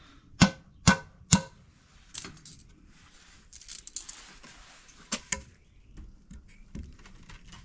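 Three sharp knocks about half a second apart, then lighter scattered clicks and rustling.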